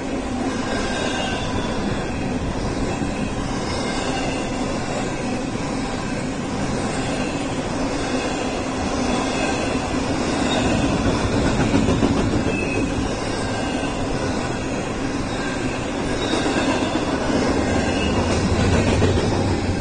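Double-stack intermodal freight cars rolling past close by: a continuous rumble and rattle of steel wheels on rail, with short high squeals from the wheels now and then. It swells a little about halfway through and again near the end.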